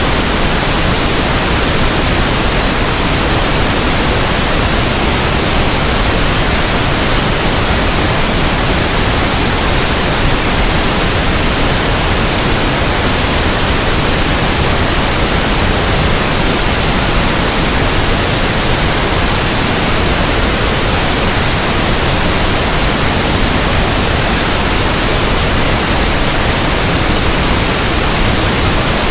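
Steady pink noise: an even, unchanging hiss across all pitches, with no events or variation.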